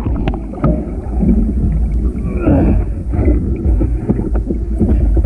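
Water splashing and sloshing in irregular strokes, over a heavy low rumble.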